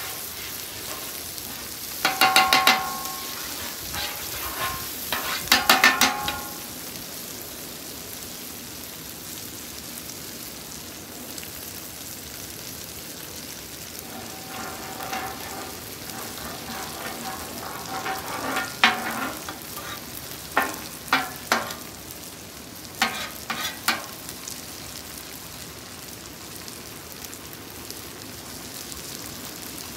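Butter sizzling on a hot flat-top griddle, with a metal spatula scraping across the steel several times. From about halfway through, beaten eggs go onto the griddle and the sizzle carries on under more spatula scrapes and taps.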